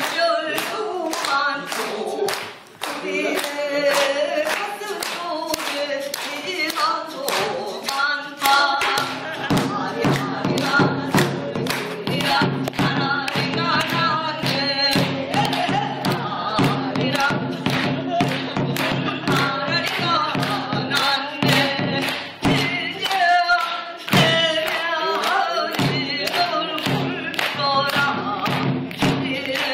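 Beatboxing into a microphone: a quick, even beat of sharp clicks and snare sounds, with singing over it. A low steady hum joins about nine seconds in.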